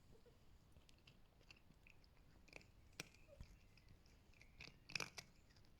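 Near silence with a few faint mouth clicks and smacks from a sleeping Birman kitten, the loudest cluster near the end.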